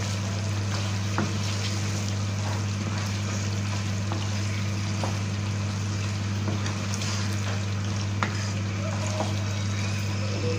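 Mutton curry sizzling in oil in a nonstick wok as a wooden spatula stirs it, with scattered light scrapes and taps of the spatula on the pan. A steady low hum runs underneath.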